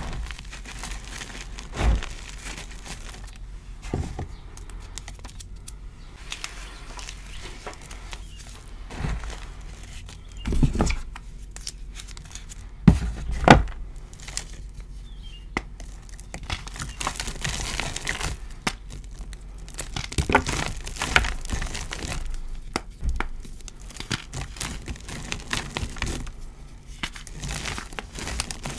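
Hands crushing and crumbling dyed gym chalk, with irregular dry crunches and crackles and soft powdery rubbing. Two sharp crunches stand out about halfway through.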